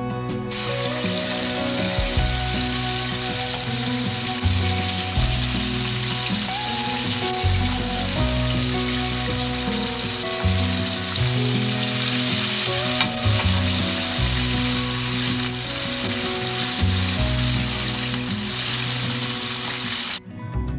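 Battered chicken tenders deep-frying in vegetable oil in a frying pan: a loud, steady sizzle that starts about half a second in and cuts off just before the end, with background music underneath.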